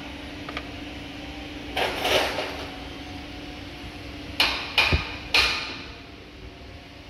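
Plastic engine-oil bottles being handled: a rustling scrape about two seconds in, then three sharp plastic knocks in quick succession a little past the middle, over a steady low hum.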